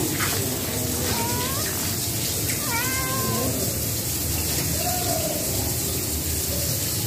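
Cat meowing three times: short calls about one, three and five seconds in, the middle one the longest, over steady background noise.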